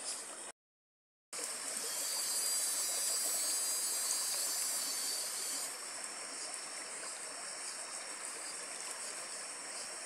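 Shallow creek running over a flat rock bed in rippling riffles: a steady rush of flowing water. The sound cuts out completely for most of a second near the start, and settles a little quieter after about six seconds.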